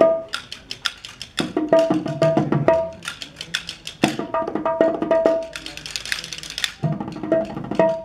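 Rajasthani wooden castanets (kartal) clacked in fast, rhythmic bursts of clicks with short breaks, breaking into a quick rattling roll about six seconds in.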